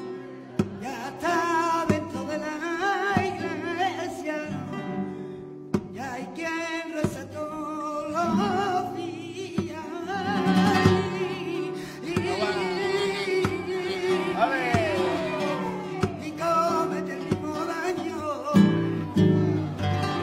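Male flamenco singer (cantaor) singing a fandango in long, wavering, ornamented vocal phrases, accompanied by flamenco guitar strums and plucked notes between the lines.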